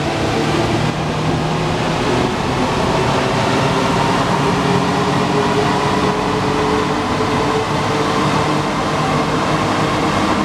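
Alstom NS-93 rubber-tyred metro train running, with a steady rolling rumble and a traction-motor whine whose several tones rise slowly in pitch, as the train gathers speed.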